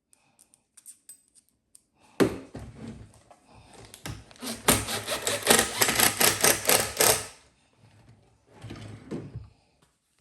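Power driver driving drywall screws into a cabinet drawer front: a loud, rapid rattle of clicks starting suddenly about two seconds in and lasting about five seconds, then a shorter, quieter burst near the end.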